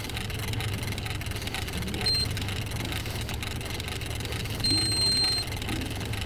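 Electronic beeping over a steady low hum: a short high beep about two seconds in and a longer one near five seconds.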